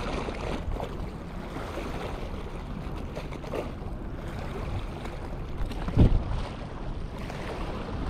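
Small waves washing and sloshing over a seaweed-covered rock ledge, with wind on the microphone; a louder thump about six seconds in.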